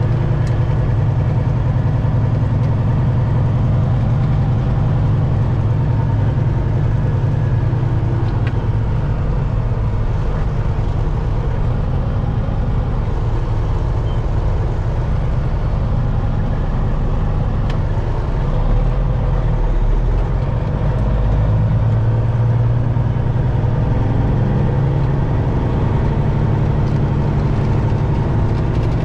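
Detroit Diesel engine of a Peterbilt 379 truck running at a steady engine speed, a deep even drone, with the lowest rumble swelling briefly about two-thirds of the way through.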